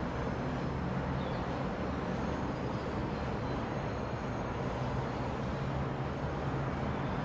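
Steady hum of city road traffic, with a low drone of engines under it.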